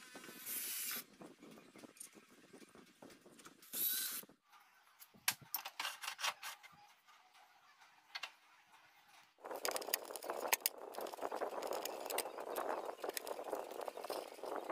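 Aluminium machine parts being handled and fitted: two short bursts of an electric drill driving screws, then scattered metal clinks, and from about nine seconds in a continuous rattling, scraping clatter of metal on metal.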